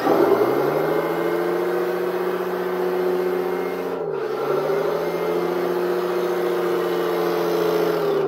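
RC semi truck's electronic sound kit playing a simulated big-rig diesel engine through its small speaker as the truck drives. The engine note climbs and holds, drops about four seconds in and climbs again, then falls away near the end.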